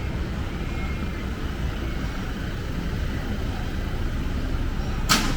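Steady low rumble of city street traffic, with one sharp click or knock near the end.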